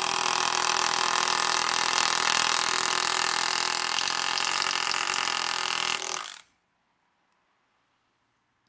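Cordless nailer hammering a nail into a timber block with a steady stream of rapid blows, which stop suddenly about six seconds in as the nail is driven home.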